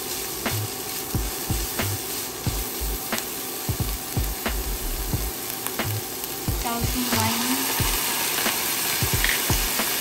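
Ground beef and onions sizzling in a nonstick wok over high heat, with a silicone spatula scraping and knocking against the pan in the first half. The sizzle grows louder about two-thirds of the way through.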